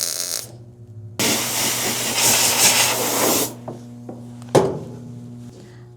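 MIG welder laying a short bead on the Blazer's sheet-metal patch: a crackling hiss for about two seconds, with a sharp click about a second after it stops.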